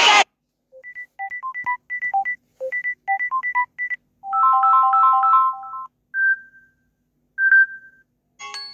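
Samsung Galaxy A30 ringtones played in turn from the phone's speaker. First comes a quick melody of short electronic beeps, then a fast warbling trill of three tones, then two single chime notes, and near the end another multi-note tone begins.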